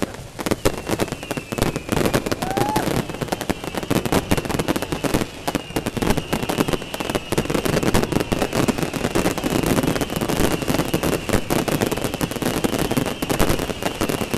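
Fireworks crackling: a dense, continuous rattle of rapid small pops, with a steady high whistle running under it from about a second in.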